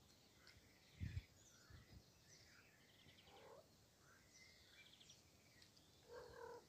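Faint birdsong from songbirds in the background: scattered short chirps and quick rising and falling notes. A low thump about a second in.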